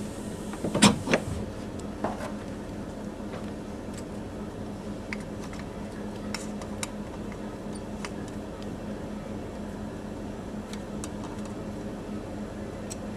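A metal specimen holder being fitted onto the shaft of a Forcimat head: two sharp metallic clicks about a second in, another near two seconds, then light scattered ticks. A steady low electrical hum runs underneath.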